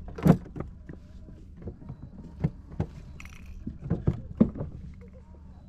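Irregular knocks, clunks and light rattles on a plastic fishing kayak as gear and a just-caught crappie are handled, the loudest knock coming just after the start.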